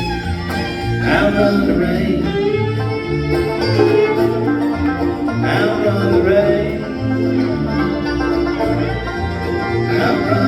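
Live bluegrass band playing an instrumental passage: banjo and guitar picking with fiddle over a bass line that steps from note to note.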